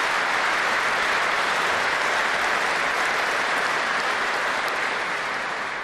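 A large seated audience applauding, a dense steady clapping that fades near the end.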